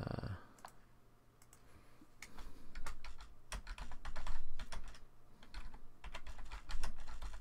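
Typing on a computer keyboard: irregular runs of sharp key clicks, starting under a second in.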